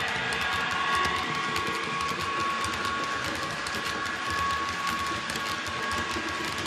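H0-scale model SNCB Class 13 electric locomotive running past with its digital sound decoder playing a steady electric-motor whine through the model's small speaker. The wheels of the model car-carrier wagons click over the track.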